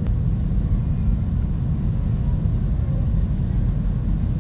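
Airbus A320-214 cabin noise during descent: a steady, low rumble of engines and airflow.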